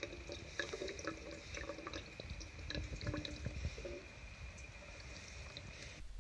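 Water dripping from a hanging gravity water filter into a plastic bottle partly filled with liquid, irregular small plinks. The drips come quickly for about four seconds, then more sparsely.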